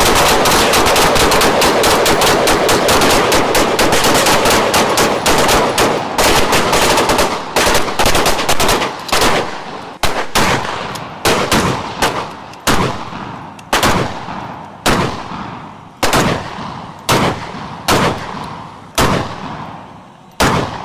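Rifle gunfire from several shooters at once: a dense, overlapping barrage of shots for about the first nine seconds, then thinning to separate shots about two a second.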